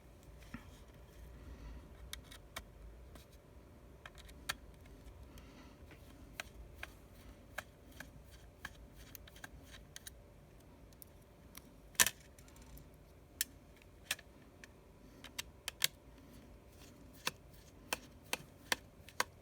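Small sharp clicks and taps, irregular and scattered, of a precision screwdriver and small tools working the tiny screws around an iPhone 6s charging port. One louder click comes about twelve seconds in, and the clicks come more often near the end.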